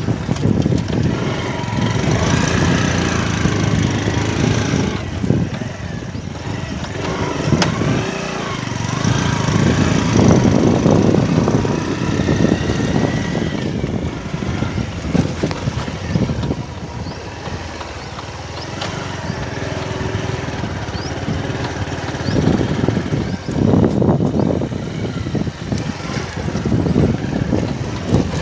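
Motorcycle engine running while riding along a bumpy dirt track, with a rumbling noise that rises and falls throughout.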